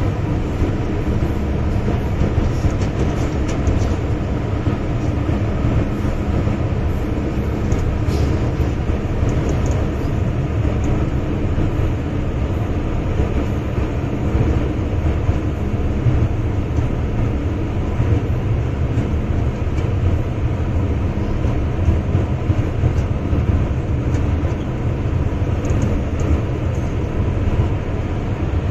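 MTR M-Train electric multiple unit running, heard from inside the carriage: a steady low rumble with a faint constant tone over it and a few light clicks.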